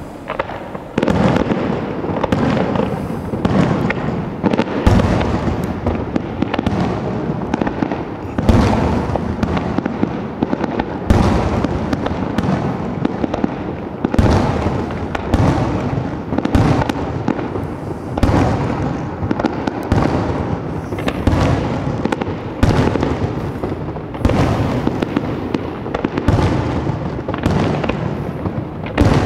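Aerial fireworks display: shell after shell bursting in quick succession, the bangs overlapping into a continuous barrage with frequent louder blasts.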